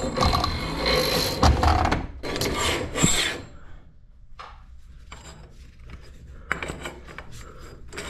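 Metal garage door hardware being handled: rough scraping and rubbing for the first few seconds, then a quieter stretch with a few light clicks near the end.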